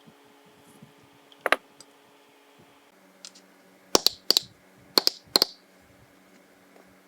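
Nail-prep supplies being handled, giving sharp clicks: one about a second and a half in, then four more in two quick pairs from about four seconds in.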